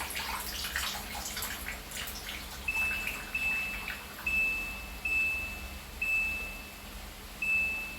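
Water splashing and trickling in a washing machine as it drains. Then, from a few seconds in, about six short high beeps at uneven intervals from the machine's control panel as its buttons are pressed to change the cycle to rinse and spin.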